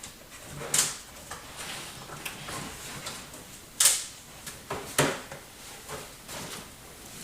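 Cardboard box and packaging being handled while a computer case is unpacked: a series of short scraping, sliding swishes, the loudest about four seconds in.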